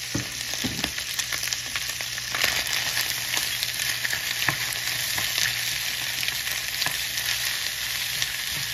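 Beef liver and sliced onion sizzling in hot oil in a pan, with a steady hiss. A wooden spoon stirs them, making scattered scraping knocks against the pan.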